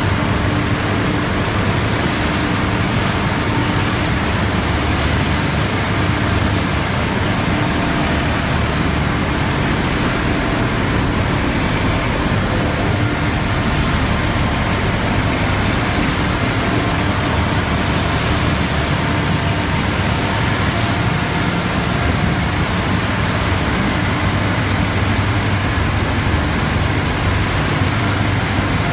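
Textile waste recycling line running: openers, cleaners and carding rolls working together in a loud, steady machine din with a low hum underneath.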